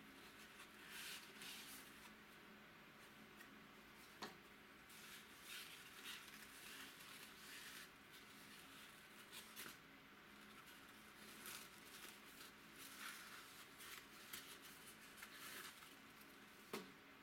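Faint rustling and scraping of a cardboard box and corrugated paper wrapping being handled and unrolled by hand, in short irregular bursts, with a sharp click about four seconds in and another near the end.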